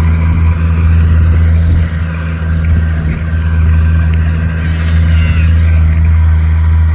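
Engine running steadily at a constant speed, a deep even hum with no change in pitch.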